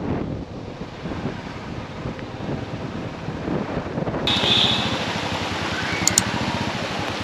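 Wind rushing over a helmet camera's microphone while a motorcycle rides along a wet road, with a rapid low flutter underneath. A little over four seconds in, the sound cuts abruptly to a steadier hiss as a motorcycle rolls slowly onto a wet driveway.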